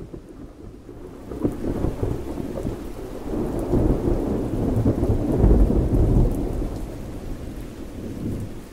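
Rumbling, rustling handling noise while a screwdriver takes out the screws of a Fender Twin Reverb's metal filter-capacitor cover and the cover is worked loose from the chassis. The noise builds about a second and a half in and is loudest around five to six seconds in.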